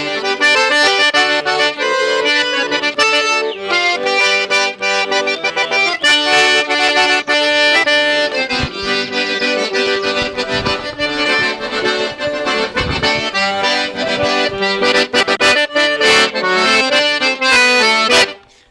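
Accordion (sanfona) playing a forró tune, melody over chords, stopping abruptly shortly before the end.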